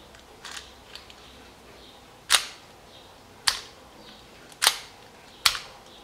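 Four sharp mechanical clicks about a second apart, from a small metal key switch being turned with its key on a homemade battery-powered door lock. A few faint ticks come just before them.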